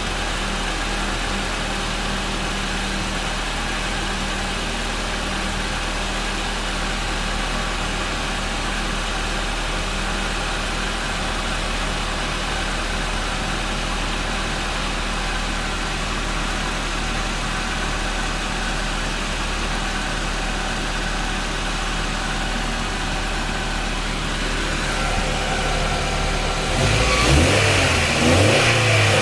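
Honda Prelude's H22A1 2.2-litre four-cylinder engine idling steadily, then revved briefly a few times near the end, the pitch rising and falling.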